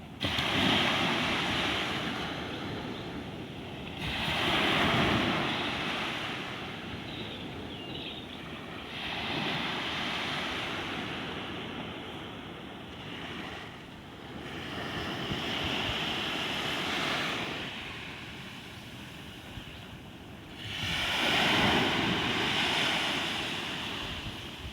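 Ocean waves breaking and washing in, swelling and fading in surges about every four to five seconds.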